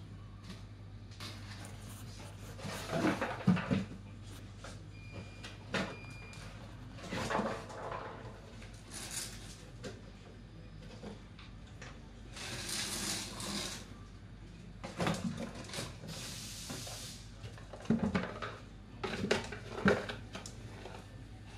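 Cardboard boxes being knocked, shoved and dragged about by a dog nosing through them: irregular thuds and rustles, with two longer stretches of cardboard scraping across the floor past the middle. A steady low hum runs underneath.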